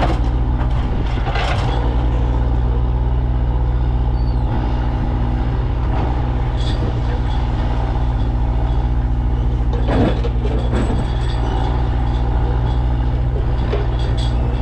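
Takeuchi TL12V2 track loader's diesel engine running steadily under work, with a couple of short knocks, one early and a louder one about ten seconds in.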